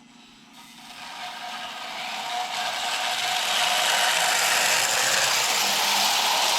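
Lionel prewar standard-gauge electric train running on metal track, a steady mechanical rumble of motor and wheels that grows louder over the first few seconds and then holds.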